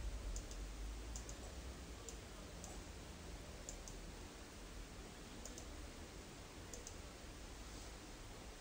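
Quiet, irregular computer mouse-button clicks, several in quick pairs, over a low steady hum.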